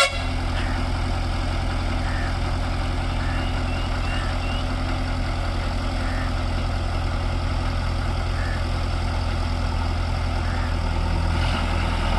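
Heavy diesel engine running steadily at low revs, a deep even drone, with a sharp click at the very start and a slight change in the engine note near the end.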